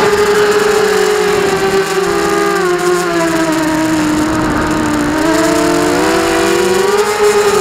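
FPV quadcopter's brushless motors whining in flight, heard through the onboard camera's microphone: several close pitches moving together with the throttle. The pitch sags about halfway through, then climbs back up.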